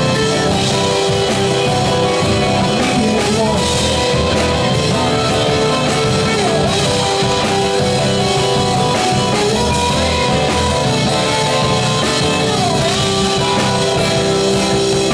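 Live rock band playing: electric guitars and an acoustic guitar over a drum kit, loud and steady throughout.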